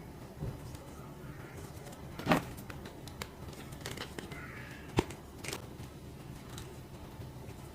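Handling of a boxed figure's packaging: scattered sharp clicks and knocks with faint rustling, two louder knocks about two and five seconds in, over a steady low hum.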